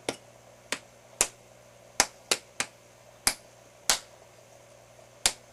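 About nine sharp clicks at uneven intervals, from a small handheld cylindrical gadget being pressed and handled.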